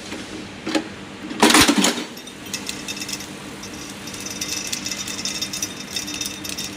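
Automatic bolt rivet clinching machine running after its start button is pressed. Under a steady motor hum there is one loud, noisy stroke about a second and a half in, lasting about half a second, followed by a fast, continuous clatter from the machine and its feeding system.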